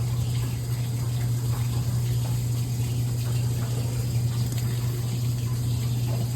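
Water running steadily out of a newly installed drain line, with a strong steady low hum beneath the rush.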